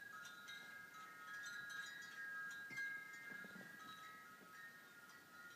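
Chimes ringing: several clear, high tones struck at irregular moments, overlapping and ringing on.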